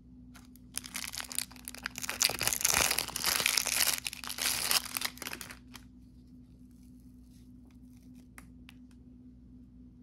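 Thin clear plastic wrapper of an individually wrapped crêpe crinkling and tearing as it is pulled open by hand, for about five seconds, followed by a few faint crackles as the crêpe is handled.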